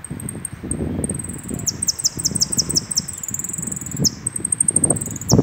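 Caged saffron finch (jilguero) singing: about a second and a half in, a run of quick high descending notes, about five a second, then long high trilled notes and a few more quick notes near the end. A low background rumble sits underneath throughout.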